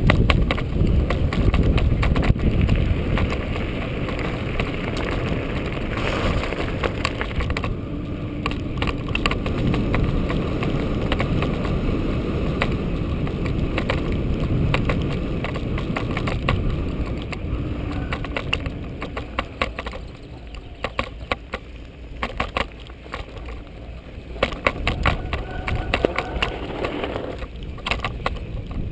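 Mountain bike descending a downhill trail, heard from a GoPro on the bike or rider: wind rumbling on the microphone, tyres rolling over grass and gravel, and the bike's chain and frame rattling and knocking over bumps. The rumble eases after about twenty seconds, leaving sharper clicks and rattles.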